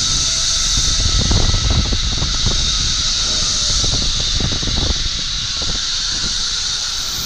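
Zipline trolley running along the steel cable: a steady, loud hiss with low wind rumble on the microphone and a run of rattling knocks in the middle. Near the end a faint tone slides downward.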